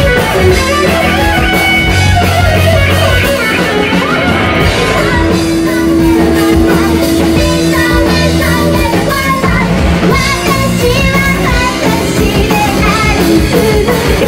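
Live rock band playing: electric guitar and drum kit, with a woman singing lead.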